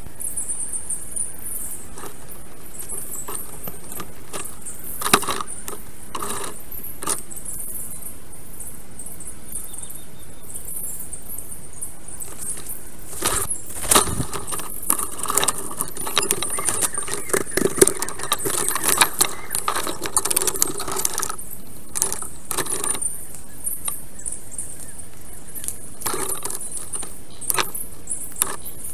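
Black stork handling sticks on its nest: scattered clicks and rattles of twigs, thickening into a run of clattering and rustling in the middle, over a constant high hiss.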